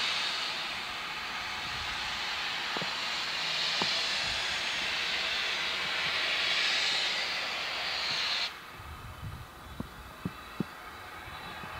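SR U Class No. 31806 steam locomotive letting off steam: a loud, steady hiss that cuts off suddenly about eight and a half seconds in, leaving a low rumble and a few sharp clicks.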